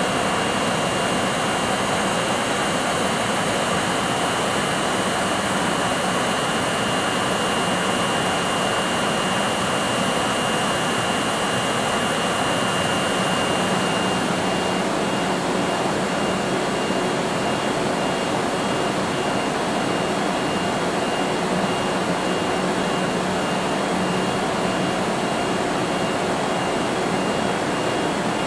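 EF64 1000-series electric locomotives standing with their cooling blowers running: a steady jet-like rushing roar with a thin high whine that begins to flutter about halfway through.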